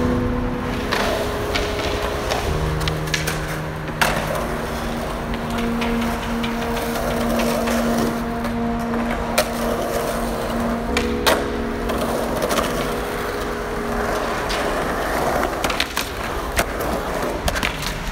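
Skateboard wheels rolling on smooth concrete, with several sharp clacks of the board hitting the ground, over music with long held notes.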